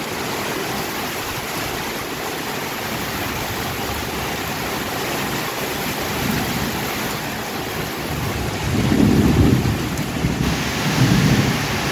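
Steady hiss of heavy rain and strong wind, with a deeper low rumble that swells twice near the end.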